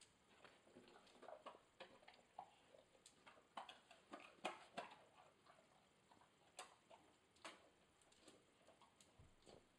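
Faint, irregular clicks and ticks from a yellow Labrador eating a treat and its claws tapping on a tiled floor as it moves about.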